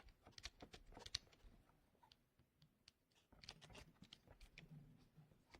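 Faint scattered clicks and light rattling from handling a metal soldering third-hand stand with flexible arms and alligator clips, in two short clusters: about half a second in and again about three and a half seconds in.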